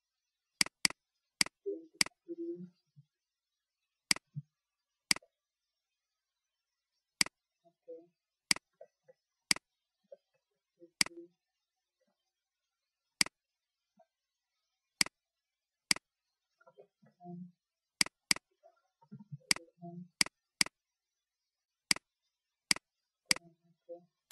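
Computer mouse button clicking: single sharp clicks at irregular gaps of a second or two, about twenty in all, with faint low murmurs between some of them.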